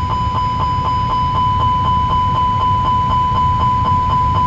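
Airbus A320 master warning aural alert, the continuous repetitive chime, sounding a rapid steady series of about four chimes a second for a cargo smoke warning set off by the smoke detection test. It plays over a steady low rumble.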